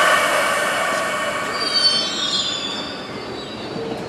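MBTA Orange Line subway train of older-type cars pulling out of the platform, with a steady whine and then a high wheel squeal in the middle that fades off toward the end.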